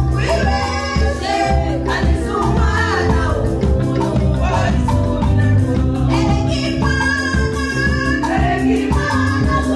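Women's choir singing a gospel song through handheld microphones over amplified backing music with a steady bass line and beat.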